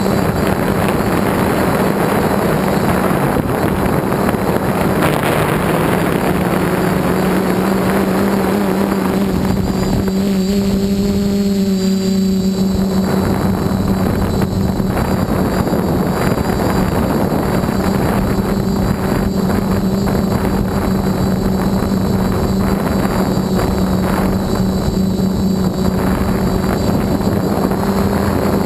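450-size quadcopter in flight heard from on board: its electric motors and propellers hum steadily under a thick rush of wind on the microphone, which eases for a couple of seconds about ten seconds in.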